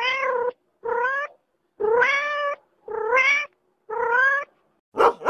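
Domestic cat meowing five times, about once a second, each meow rising in pitch and then holding, followed near the end by a short, louder double call.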